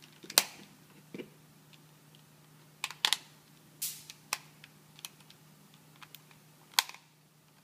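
Scattered sharp plastic clicks and taps, about eight in all and irregularly spaced, from a half-assembled PS3 controller being handled and its buttons pressed to test them. One button does not feel right, a sign that a button or bezel is not seated properly.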